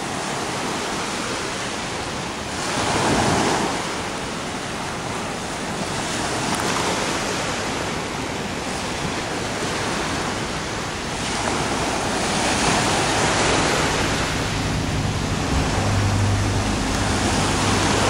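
Small surf breaking and washing up a sandy beach, swelling and fading every few seconds. Wind rumbles on the microphone in the last few seconds.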